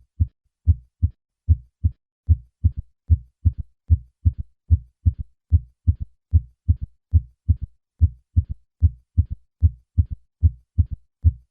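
Heart sounds: a steady run of short, low thuds at about two to three a second, grouped beat by beat, given as an example of a third heart sound (S3) in early diastole after S2. An S3 is normal in athletes and in pregnancy, but it can be a sign of ventricular volume overload, as in congestive heart failure.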